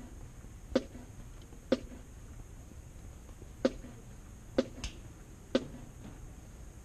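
Six sharp clicks, mostly about a second apart, with one longer gap between the second and third.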